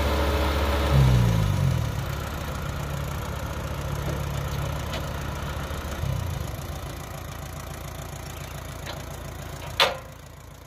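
Diesel engine idling, revving up briefly about a second in and settling back. Near the end there is a single sharp metal clank, after which the engine sounds quieter.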